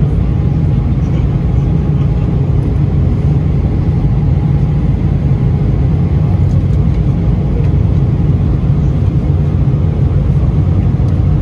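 Steady low rumble of an airliner's engines and airflow heard from inside the passenger cabin.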